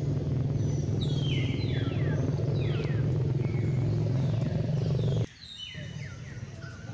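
A low, steady engine rumble, like a motor vehicle running, cuts off abruptly about five seconds in. Short, high, falling chirps sound over it throughout.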